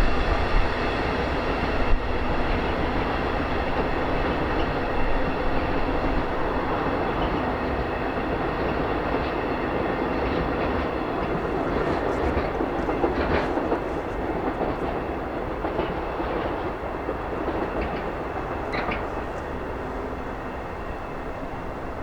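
A train running past on the line, a steady rumble and clatter that slowly fades as it moves away.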